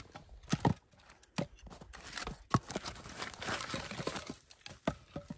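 Split firewood pieces knocking against each other as they are set crosswise into a log-cabin fire lay: a handful of sharp wooden knocks, with rustling and crunching in between.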